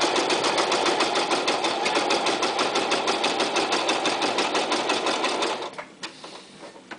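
Toyota Super Jeans J34 domestic sewing machine sewing through six layers of marine vinyl under the regular metal presser foot, in an even rhythm of about eight or nine needle strokes a second, stopping after about six seconds. The metal foot drags on the vinyl, so the stitches come out very short.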